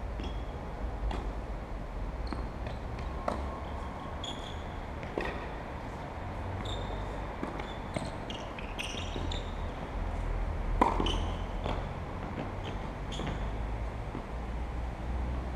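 Tennis ball being played in a rally: sharp racket strikes and court bounces about once a second, over a steady low rumble.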